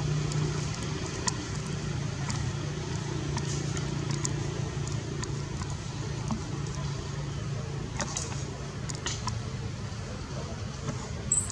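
Outdoor background noise: a steady low hum like a running engine or distant traffic, with scattered short high clicks.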